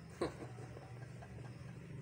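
A rooster gives one short cluck a moment in, falling in pitch, over a low steady hum.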